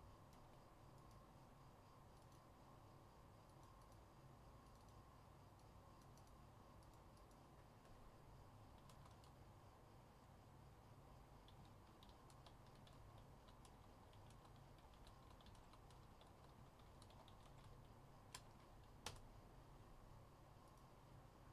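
Near silence with faint, scattered clicks of typing on a computer keyboard over a low steady room hum, and two sharper clicks near the end.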